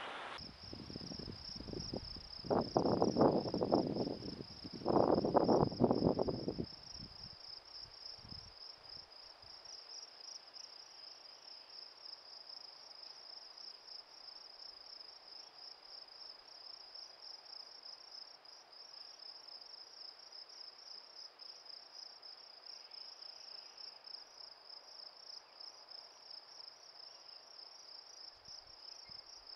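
A steady, high insect trill, finely pulsing, runs throughout. Two loud bursts of low rustling noise come about two and a half and five seconds in.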